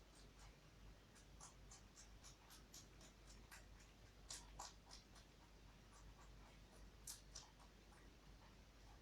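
Toy rabbit chewing lettuce: faint, rapid crisp crunches, several a second, with louder bites about four seconds in and again about seven seconds in.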